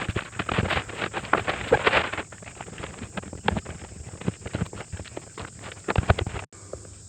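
Cardboard and packing material rustling and scraping, with many irregular knocks and thumps, as a DeWalt DW735 thickness planer is pulled out of its box. The sound drops out for a moment near the end.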